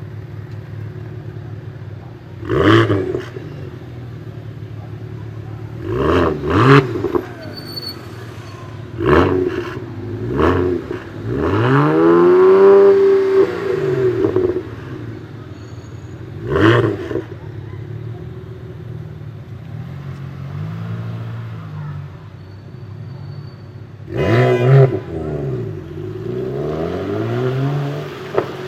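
BMW 1M Coupé's twin-turbo 3.0-litre inline-six, tuned with anti-lag, idling and revved in a series of short throttle blips with one longer rev near the middle. Sharp pops and crackles come from the exhaust as the revs drop.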